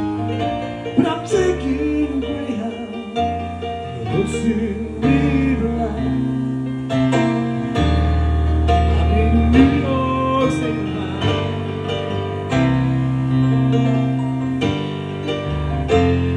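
Live piano playing a slow ballad, with chords over held bass notes that change every second or two, and a man's voice singing over it in places with long, sliding notes.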